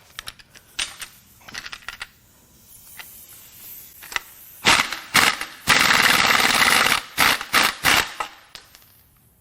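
Impact wrench hammering on the crankshaft pulley bolt of a 4.6L DOHC V8. Some light clicks and taps come first. About five seconds in there are a couple of short bursts, then one long run of about a second, then several more short bursts.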